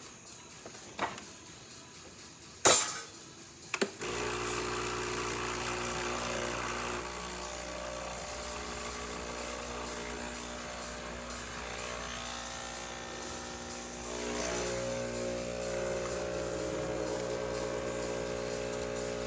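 Breville Barista Express espresso machine pulling a shot: a couple of sharp clicks, then about four seconds in the vibratory pump starts and hums steadily while the water is pushed through the portafilter.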